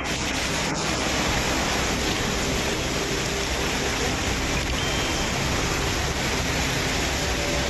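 Rushing floodwater: a dense, steady noise with no breaks.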